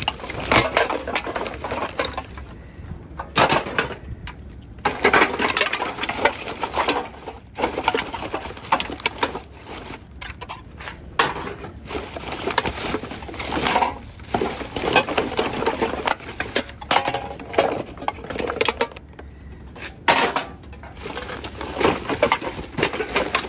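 Thin plastic garbage bags crinkling and rustling in irregular bursts as gloved hands tear open a bag and rummage through the trash inside, with bits of clatter from the items being moved.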